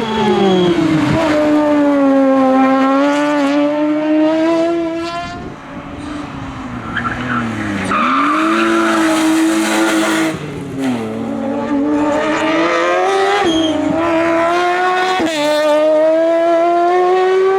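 Race car engine running hard, its pitch climbing and falling several times as the driver works the throttle and gears. Tyres squeal for a couple of seconds in the middle.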